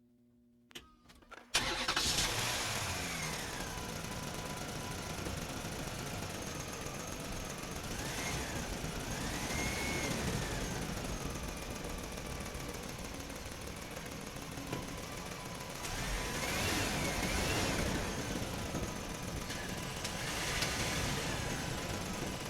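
Electric motors and gearboxes of radio-controlled Huina construction models running. The noise starts abruptly about a second and a half in and carries on steadily, with a motor whine that rises and falls in pitch as the models are driven.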